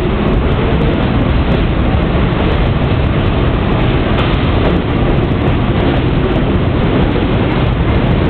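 R46 subway train pulling out of the station past the platform at close range: a loud, steady rumble of the moving cars.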